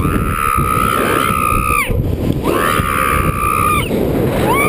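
A woman screaming three times in long, high, held screams, each rising at the start and dropping off at the end. Loud wind rushes across the microphone as the thrill ride swings her through the air.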